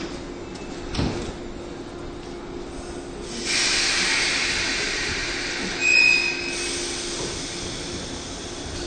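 A 185 series electric train, with a steady hum and a click about a second in. A rush of hissing noise rises sharply about three and a half seconds in and eases after six seconds, topped by a short high squeal at about six seconds.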